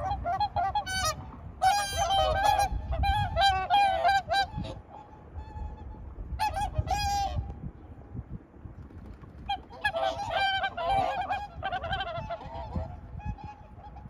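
Several swans calling over one another in bouts of repeated pitched calls, with lulls about five and eight seconds in and a low rumble underneath.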